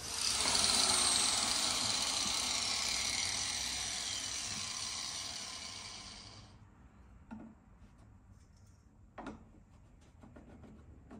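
A power tool cutting a PVC fitting: a loud whir that starts suddenly, fades slowly and stops about six and a half seconds in. A couple of light knocks follow.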